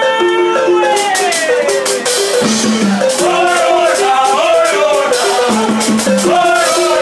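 Marimba ensemble playing a repeated low note pattern, with shakers rattling steadily over it and a voice singing a bending melody on top, starting with a long note that slides down.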